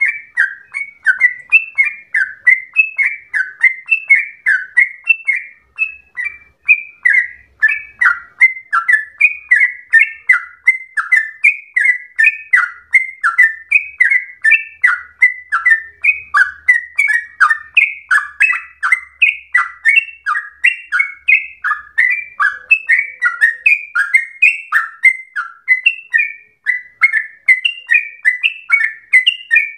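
Yellow-vented bulbul (trucukan) singing a long, unbroken run of quick, bubbly whistled notes, about three a second.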